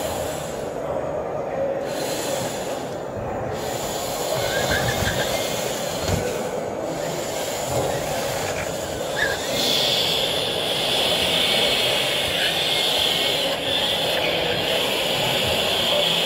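Small four-wheeled rescue robot driving over plywood ramps: a steady mechanical rumble over background hiss, with a high steady whine joining about ten seconds in and holding.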